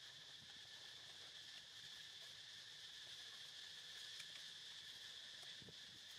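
Faint, steady insect drone with an even high pitch and no pauses. A few soft ticks and rustles come through it.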